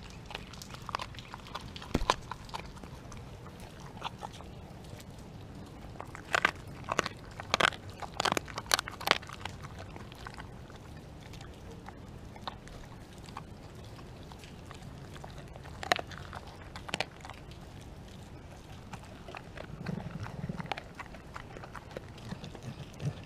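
A husky–pit bull mix dog chewing a raw chicken, with sharp crunches of bone. A quick run of loud crunches comes about six to nine seconds in, with single crunches scattered through the rest.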